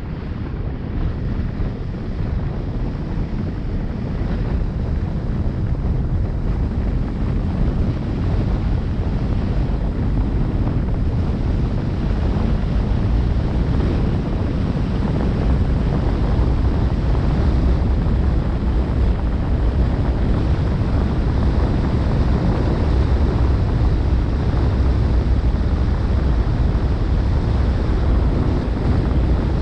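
Wind buffeting the microphone: a steady low rumbling rush that grows louder over the first several seconds, then holds.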